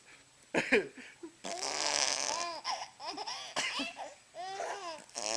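Baby laughing hard in repeated high-pitched squealing bursts, set off by fart sounds, after a brief lower sound about half a second in.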